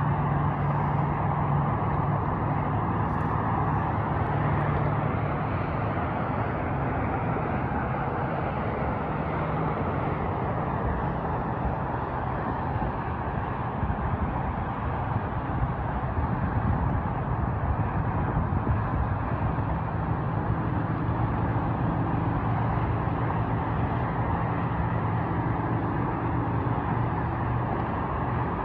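Steady hum of distant freeway traffic: many cars and trucks blending into one continuous, unbroken noise with a low drone underneath.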